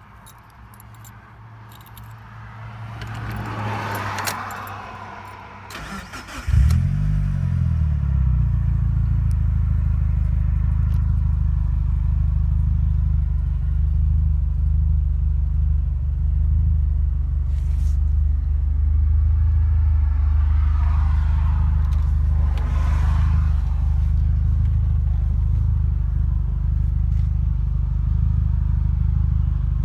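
A 1996 Mitsubishi Lancer Evolution IV's turbocharged 2.0-litre 4G63 four-cylinder, with aftermarket exhaust, starting about six and a half seconds in. It then idles steadily.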